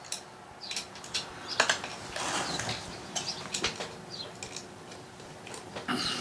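Scattered clicks, light knocks and short rustles from handling a chainsaw and its plastic parts around the oil tank.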